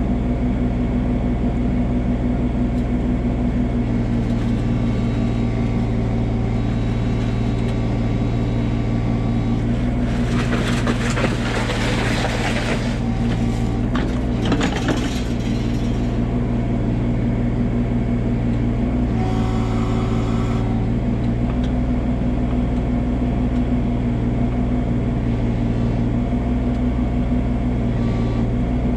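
Komatsu PC16 mini excavator's diesel engine running steadily, with a louder hydraulic hiss from about ten to sixteen seconds in and again briefly around twenty seconds as the arm moves.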